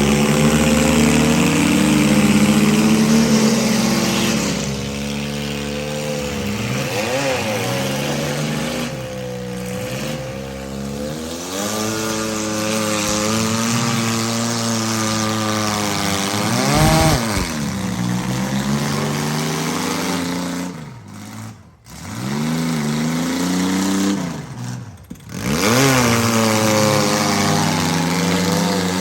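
Demolition derby compact and midsize car engines running and revving, their pitch rising and falling again and again. The sound drops away briefly twice, a little past two-thirds of the way through.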